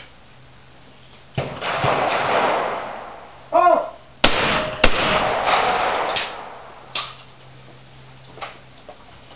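Shotgun shots at a clay trap: one report about a second and a half in, then a short shouted call, then two loud close shots about half a second apart, each with a long echoing tail. Fainter single reports follow near the end.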